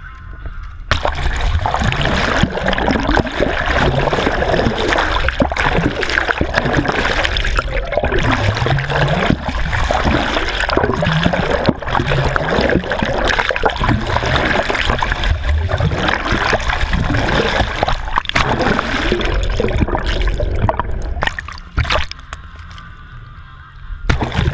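Sea water rushing and splashing against an action camera mounted low on a moving boat's hull, with bubbling gurgles as the lens dips under the surface. It comes in about a second in and eases off briefly near the end before surging again.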